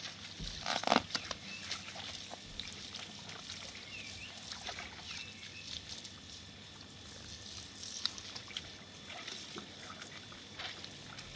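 Water from a garden hose trickling and sloshing over a soapy carpet while hands scrub its fringe, with small wet scrubbing clicks and a louder splash about a second in.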